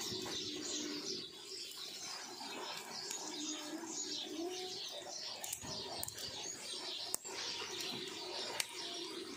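Birds chirping and calling in the background, with a lower held call that steps in pitch about four seconds in. A few sharp clicks sound, the loudest near the end.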